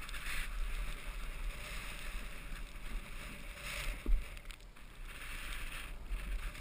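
Hiss of edges scraping and sliding over packed snow during a run, swelling in surges. Wind rumbles on the microphone underneath, and there is a single sharp knock about four seconds in.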